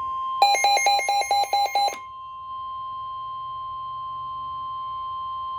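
NOAA Weather Radio warning alarm tone: a steady, loud single high tone near 1,050 Hz, which signals that a warning is about to be broadcast. For the first two seconds a rapid series of about eight electronic beeps, roughly five a second, sounds over it.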